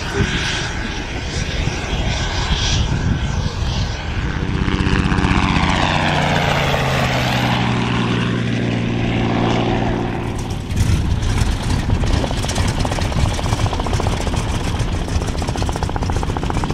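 Aircraft engines in three short edited takes. First a jet trainer's takeoff noise. Then a light piston helicopter passing low, its engine and rotor hum sweeping down and back up in pitch as it goes by, about five to nine seconds in. From about eleven seconds, a Stearman biplane's radial engine running at low power on the ground.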